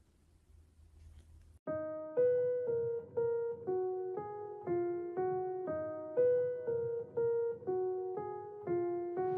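Background music: after a second and a half of near silence, a piano-like keyboard begins playing a steady run of notes, about two a second.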